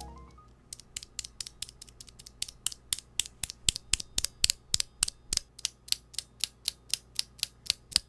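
A single Cherry MX Blue mechanical keyboard switch pressed repeatedly by a fingertip. Its click jacket gives sharp, quick clicks, about five a second.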